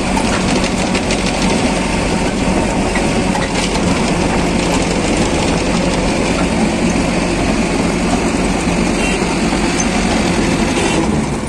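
Farmtrac 6055 tractor engine running steadily under load, driving a PTO-powered conveyor soil loader, with the continuous rush and crackle of loose earth pouring off the conveyor into a trolley.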